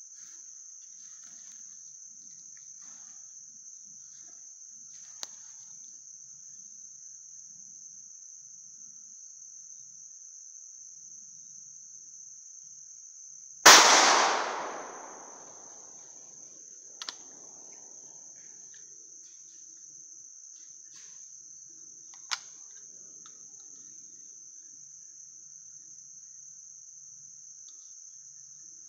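A single 12-gauge bolt-action shotgun shot about halfway through, its report echoing away through the woods for about two seconds, over a steady high-pitched drone of insects. A few faint sharp clicks come before and after the shot.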